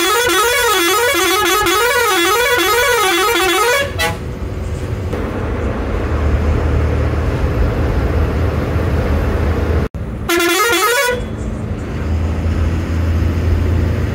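Bus horn sounding a warbling tone that swings up and down in pitch, held for about four seconds, then a second, shorter blast about ten seconds in. Between the blasts the bus engine runs with a steady low hum under road noise.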